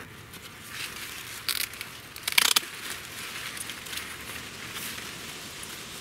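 Green corn husk being pulled back from an ear on the stalk: a rustling, crackling tear of the husk leaves, with two louder crackles about one and a half and two and a half seconds in.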